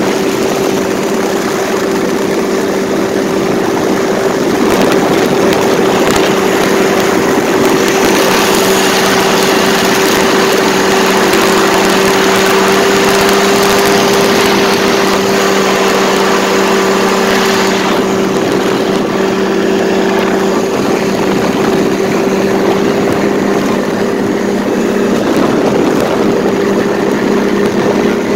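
Paramotor engine and propeller running steadily in flight, a constant drone that holds one pitch, with a rushing hiss that grows louder for about ten seconds in the middle.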